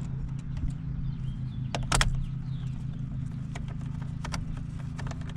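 Irregular sharp clicks and taps of a Torx T30 driver and small steel bolts being handled and started into the steering wheel's side bolt holes, with a louder cluster of clicks about two seconds in. A steady low hum runs underneath.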